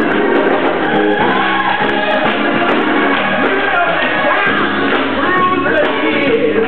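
Live church gospel music: a man shouting and singing into a microphone over the PA, a choir singing behind him, and hands clapping along.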